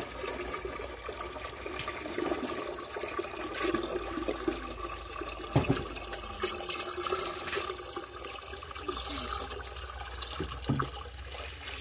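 Water from a hose pouring into a partly filled plastic watering can, splashing steadily as the can fills.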